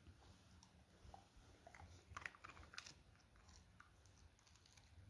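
Faint sounds of a dog chewing meat, a scatter of small clicks and crunches, the sharpest a little past the middle.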